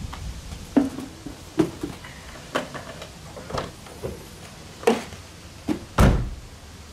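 A series of short knocks and clunks, roughly one a second, the loudest a heavy thud near the end.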